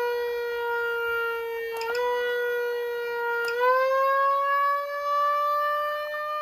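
Whelen Sencom Gold electronic siren amplifier sounding a siren tone, held nearly steady in pitch. A click with a small step up in pitch comes about two seconds in, and another about three and a half seconds in, after which the tone rises slowly.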